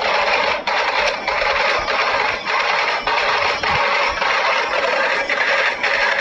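Loud rhythmic music with a dense, hissy texture and a regular pulse of a little under two beats a second.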